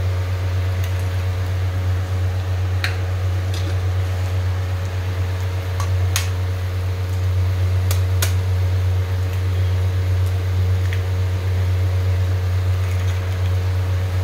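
An eggshell tapped sharply with a knife to crack it into a frying pan: a few clicks, about 3, 6 and 8 seconds in, over a steady low hum.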